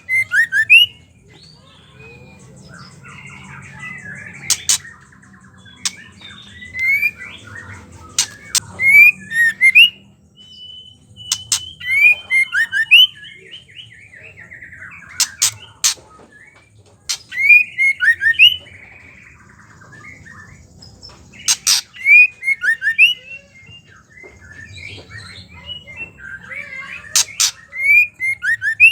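Female white-rumped shama calling: clusters of short, downward-swept whistled notes mixed with sharp clicking chatter (the 'ketrekan' call), over a faint low hum.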